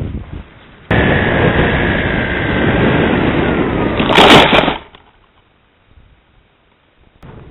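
Wind rush and motor whine heard from a camera riding on a Depron foam RC plane, the whine sliding slowly down in pitch. About four seconds in comes a loud crunch as the plane hits the ground, and then the motor is silent and it goes quiet.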